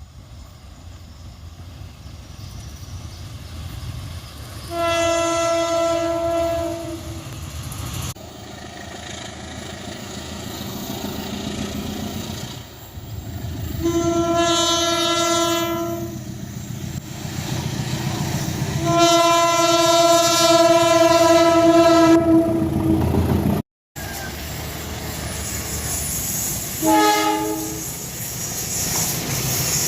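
Indonesian railway diesel locomotive horn sounding the long semboyan 35 signal: three long blasts of about two to three seconds each over the rumble of the approaching train, the rumble growing louder. After a cut, a second train gives a shorter horn blast near the end.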